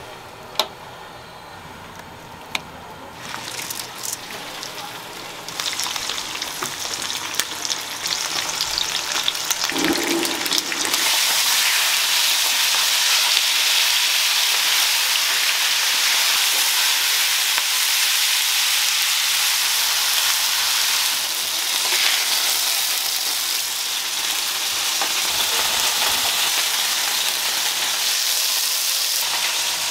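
Fish fillets sizzling as they fry in hot oil in non-stick pans. A couple of sharp clicks come first; the sizzle starts a few seconds in, swells, and is loud and steady from about ten seconds on.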